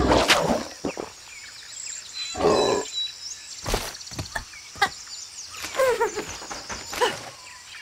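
Cartoon sound effects: a big frog's loud croak trails off in the first half second. Then comes forest ambience with faint high chirping, a short noisy burst about two and a half seconds in, and scattered clicks and brief gliding calls.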